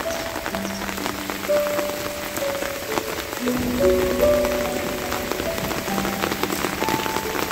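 Steady rain falling, with many scattered drop ticks, under soft background music of slow, held notes that change pitch every second or so.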